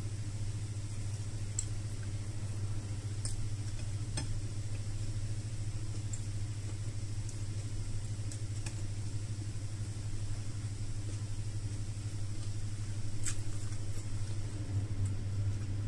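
A steady low hum, with a few faint clicks and smacks of someone eating with her fingers and chewing.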